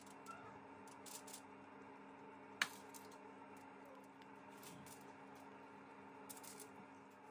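Faint taps and clicks of a metal spoon against a small ceramic bowl and the bread as melted garlic butter is spooned onto baguette slices, with one sharp click about two and a half seconds in, over a steady low hum.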